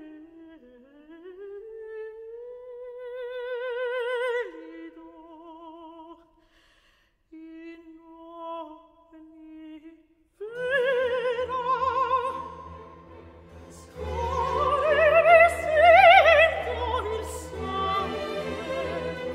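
A mezzo-soprano sings an opera aria with wide vibrato on held and gliding notes, nearly alone for the first ten seconds, with a brief pause about six seconds in. About ten seconds in, a baroque string orchestra joins her, and from about fourteen seconds the music grows fuller and louder.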